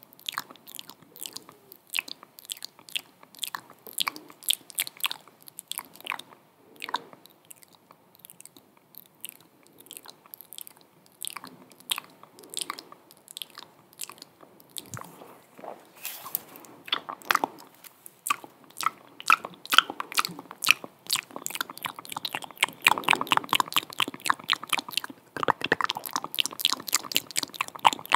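Close-miked ASMR mouth sounds: a dense, irregular run of wet clicks and smacks from the lips and tongue, growing busier near the end.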